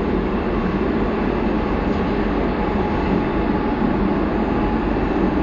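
Sorefame-Siemens ML99 metro train running steadily through the tunnel, heard from inside the car: an even rumble of wheels on rails with no sudden events.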